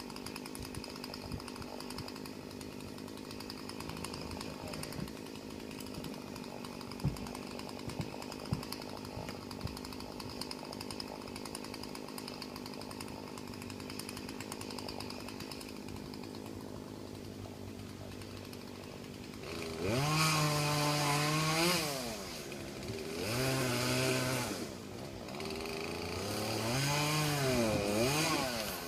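Chainsaw running steadily, with a few sharp clicks, then from about twenty seconds in revved hard three times, the pitch rising and dropping with each burst.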